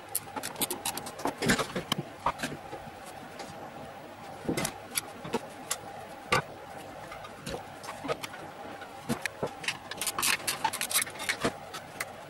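Irregular clicks, knocks and plastic clatter from a VCR being taken apart by hand: the plastic top cover is lifted off and the internal parts and a small circuit board are pulled and handled. The clatter is busiest around two seconds in and again around ten to eleven seconds in, over a faint steady hum.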